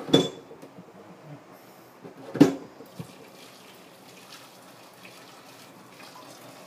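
Two sharp knocks as an electric kettle is handled, the louder about two and a half seconds in, then a faint steady splashing of hot water poured from the kettle into the sink to scald raw chicken.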